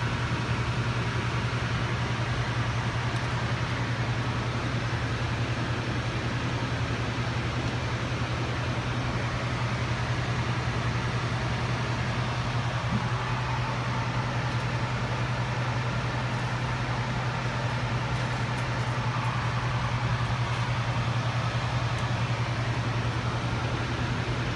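Steady flight-deck noise of a jet airliner cruising at high altitude: an even rush of air with a constant low hum underneath.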